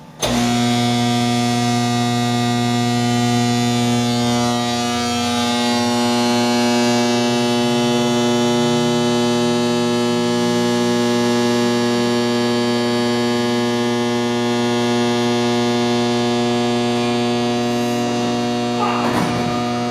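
Large three-phase AC induction motor switched on, starting abruptly and running with a loud, steady electrical hum carrying many overtones.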